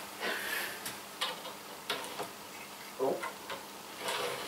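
Light, irregular clicks and taps of a small OO gauge model diesel shunter being handled and nudged on the track while it refuses to run, its poor electrical contact stalling it.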